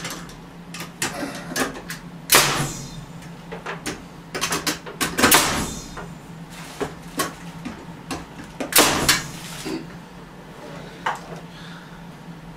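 Pneumatic nail gun driving nails into wooden framing. There are three loud sharp shots a few seconds apart, the last two with a brief hiss-like tail, and lighter clicks and knocks between them.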